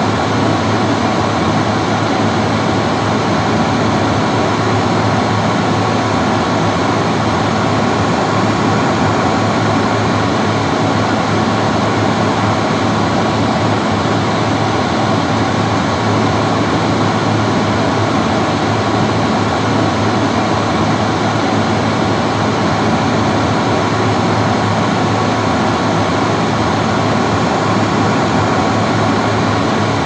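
Classic bathroom hand dryer running steadily: an even rush of blown air over a constant motor hum.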